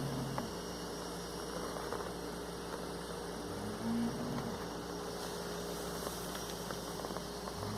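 Snoring in sleep: low, pitched snores about every four seconds (right at the start, about four seconds in, and again near the end), over a steady electrical hum.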